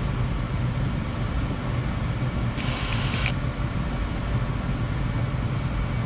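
Cirrus SF50 Vision Jet taxiing, its single Williams FJ33 turbofan at low taxi power: a steady low hum. A short burst of hiss lasting under a second comes about two and a half seconds in.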